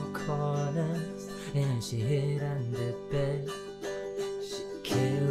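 Autoharp strummed in chords, the strings ringing on between strokes, with a low voice singing along.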